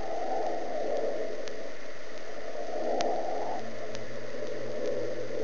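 Steady noise with a few faint clicks, joined by a low hum about three and a half seconds in.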